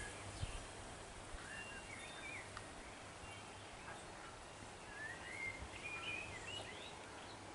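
Faint birds calling, short chirping notes that glide up and down, scattered through and busiest near the end, over quiet outdoor background noise with a low steady hum.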